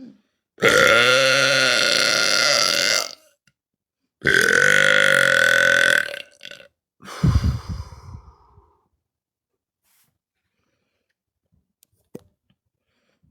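A woman belching on purpose: two long, drawn-out belches of two to three seconds each, the second starting about four seconds in. About seven seconds in comes a shorter, rougher, deeper one.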